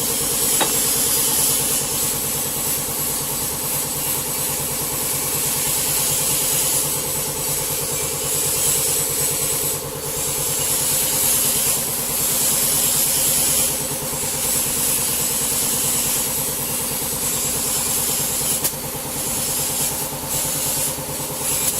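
Double-head aluminium cutting saw running steadily: a constant motor hum with several steady tones and a strong high hiss.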